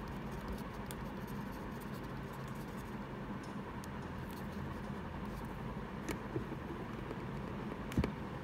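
Marker pen writing on paper: faint scratching over a steady room hum, with a knock about 8 seconds in.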